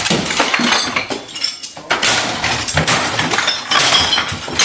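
Breaking-glass sound effect: glass shattering and clinking in repeated crashes, with a short lull about a second and a half in.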